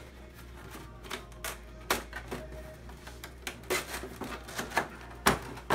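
Corrugated cardboard display parts being handled and fitted together: irregular taps, knocks and scrapes as a folded center support is pushed into a tray, the sharpest knock about five seconds in. A steady low hum runs underneath.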